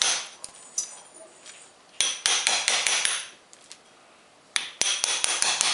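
A hammer tapping a steel chisel to chip a recess in a plastered wall for the electrical cable, so the wire can lie flat under the socket. The metallic taps come in two quick runs: the first about two seconds in, the second near the end.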